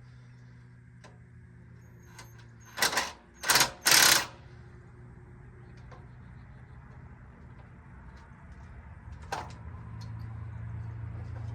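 Cordless impact driver run in three short bursts about three seconds in, backing out an over-tightened screw.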